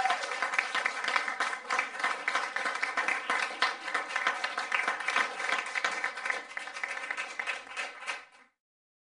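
Audience applause, many hands clapping in a dense patter, that cuts off suddenly near the end.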